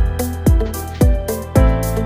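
Background music with a steady electronic kick-drum beat, about two beats a second, under sustained synth tones.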